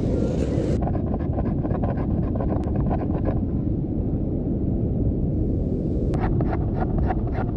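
Steady wind rumble on the microphone. Over it, two runs of short, quick scraping strokes, one about a second in and one near the end, as a knife shaves curls off a wooden stick.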